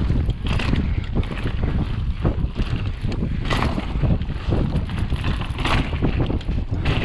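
Wind buffeting an action camera's microphone during a mountain bike descent, with knobby tyres rolling over a dirt trail. Two brief louder hisses come about three and a half and nearly six seconds in.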